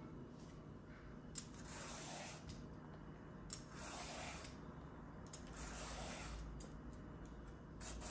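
Vegetable peeler scraping strips of skin off an aubergine: four slow rasping strokes about two seconds apart, each opening with a sharp click.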